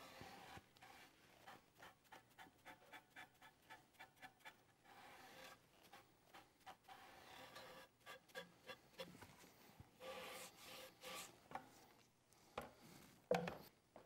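Faint, quick rubbing strokes of a wet disposable foam brush spreading finish over cedar wood. The strokes come in runs with a pause in the middle.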